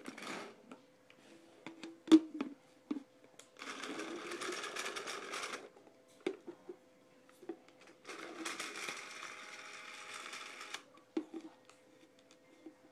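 Dye Rotor paintball loader's motor whirring as it feeds Reballs through, in two runs of about two and three seconds, with scattered clicks and clatters of the balls around them.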